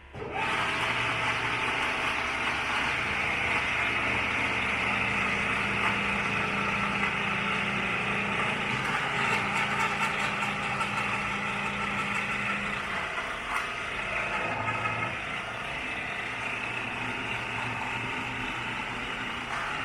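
Bullard vertical turret lathe running under power: a steady mechanical hum and whir from its electric drive and gearing, easing slightly about two-thirds of the way through.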